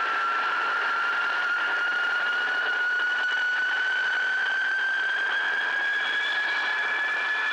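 Loud high-pitched whine from the H3 rocket's launch pad just after an aborted launch, its pitch climbing slowly and steadily, over a steady hiss.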